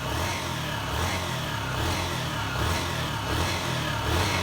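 Honda CG 125 single-cylinder four-stroke pushrod engine running, its pitch rising and falling a little, with the valve clearances just set. The mechanic calls it so smooth it is 'whistling'.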